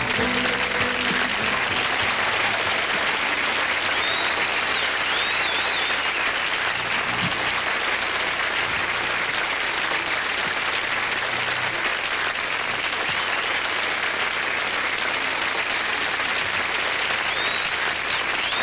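Studio audience applauding steadily after a song, with a few short high whistles about four seconds in and again near the end.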